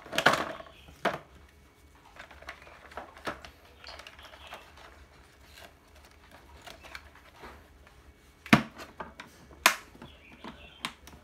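Hard plastic tool carry case being packed and shut: light knocks and clatter as a cordless drill and battery packs are set into their slots, then two sharp plastic clacks about a second apart near the end as the case is closed and latched.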